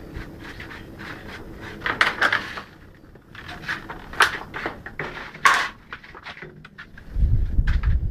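Stirring bars of a mechanical abon (shredded meat floss) frying machine turning through the meat in a stainless steel pan, with irregular scraping and clattering of metal against the pan and its frame. A low rumble comes in near the end.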